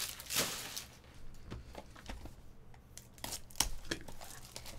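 Scattered rustling, crinkling and light knocks of trading-card pack wrappers and cardboard card boxes being handled on a table, with a few separate clicks about a second and a half in and a cluster over three seconds in.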